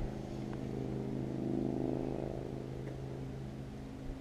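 MotorGuide electric trolling motor running with a steady, even-pitched hum that swells louder around the middle and eases off near the end as the boat is steered around.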